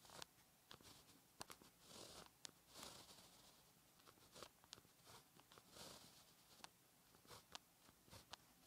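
Faint pen writing on paper: short scratchy strokes and small clicks as the nib presses, drags and lifts, stroke by stroke through a handwritten Chinese character.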